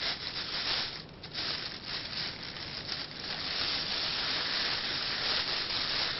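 High-density plastic merchandise bags crinkling and rustling as hands push through them to fluff them out, easing off briefly about a second in.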